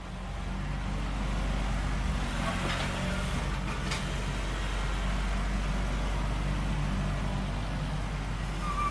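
Excavator's diesel engine running steadily with a low drone, and two faint brief higher sounds about three and four seconds in.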